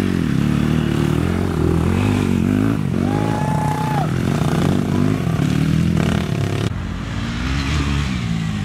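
Dirt bike engines revving up and down repeatedly as the bikes ride a rough dirt trail, with more than one engine heard at times. About three seconds in there is a brief steady high tone.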